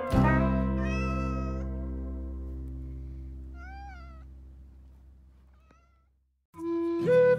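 A cat meowing twice, about a second in and again around four seconds in, the second call arching up and down in pitch. Under it a music chord rings out and fades away, and new music starts near the end.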